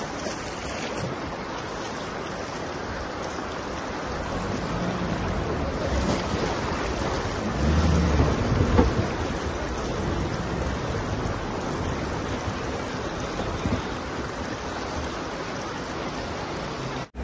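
Rushing river water and splashing as a Mahindra Scorpio N SUV drives through a shallow, rocky riverbed, with wind buffeting the microphone. The splashing grows louder and peaks about eight seconds in, with a low rumble underneath.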